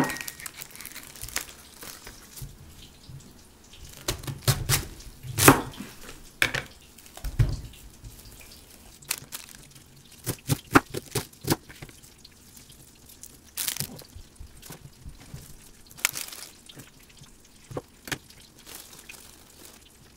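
Kitchen knife cutting cabbage on a plastic cutting board: irregular sharp knocks of the blade meeting the board, with a quicker run of strokes about halfway through.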